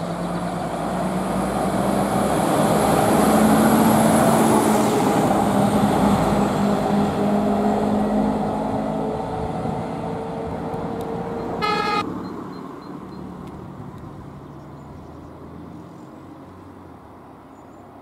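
A Scania fire engine drives past close by, its engine and tyres growing louder to a peak about four seconds in, then fading as it moves away. Just before twelve seconds there is one short horn toot.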